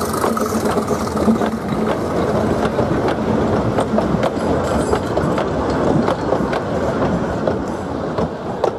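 Narrow-gauge steam train passing close by: the Fletcher-Jennings 0-4-0 well-tank locomotive Dolgoch, then its vintage carriages, rattling with irregular sharp clicks from the wheels over the track. The sound is loud and fades near the end as the train moves away.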